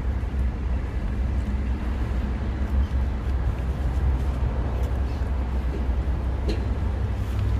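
Steady low rumble of outdoor street noise, such as passing traffic, with a few faint ticks.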